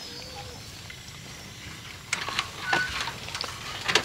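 Dry leaf and bamboo litter rustling and crackling, starting about halfway through and getting louder near the end, with one brief high chirp in among it.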